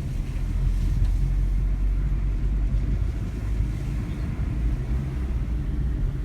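Car driving along a road: steady low engine and road rumble.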